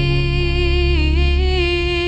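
Background pop song: a long held sung note over a steady bass, the note shifting slightly in pitch.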